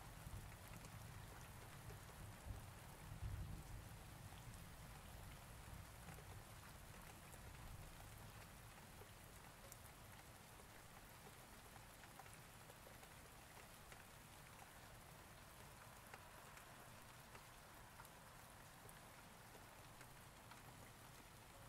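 Sliced onions frying in hot oil: a faint, steady sizzle with small crackles, over a low rumble in the first few seconds.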